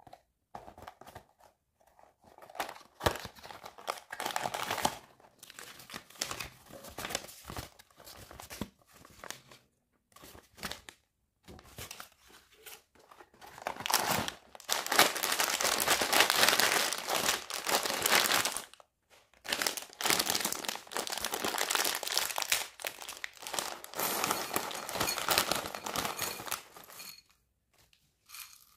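Crinkling and rustling of packaging as a small cardboard box of micro building blocks is opened and a plastic bag of bricks and a paper instruction sheet are pulled out, in irregular bursts that grow louder and more continuous about halfway through.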